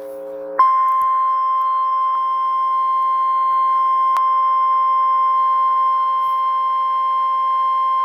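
Steady single-pitched alert tone near 1,050 Hz, the NOAA Weather Radio warning alarm tone that heads a tornado warning, switching on about half a second in and holding without a break over a lower steady drone. A brief click about four seconds in.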